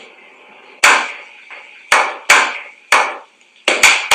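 A slow clap: single sharp hand claps about a second apart, coming faster and closer together near the end.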